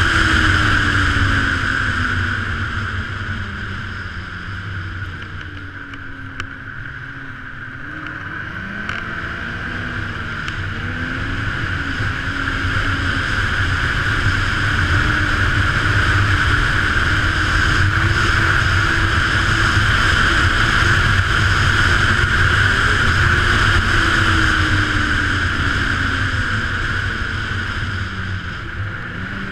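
Ski-Doo Renegade 900 ACE snowmobile's three-cylinder four-stroke engine running along a trail under way. The engine eases off over the first several seconds, picks up again about ten seconds in, holds steady, and eases off near the end, with a steady high hiss underneath.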